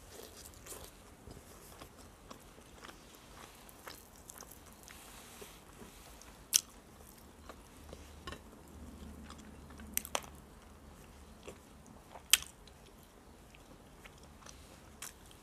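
Close-up sounds of a person eating fried chicken: quiet chewing with a few sharp crunches or clicks, the loudest about six and a half seconds in, twice around ten seconds in, and once about twelve seconds in.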